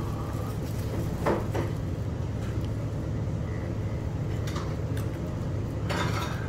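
Restaurant dining-room background: a steady low hum with a few short knocks and clinks of dishes and cutlery, the clearest about a second in.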